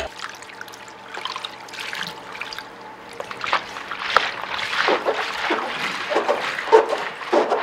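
Hands digging and rummaging through a plastic tub full of Orbeez water beads: a wet, crackling rustle of many small gel beads shifting against each other and the tub. It comes and goes irregularly and gets busier in the second half.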